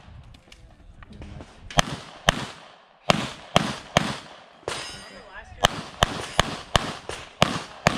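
Sig Sauer P320 X5 Legion 9mm pistol firing fast shots in a timed stage run. After a pause of about a second and a half, it fires about a dozen shots in quick pairs and short strings, often two or three a second.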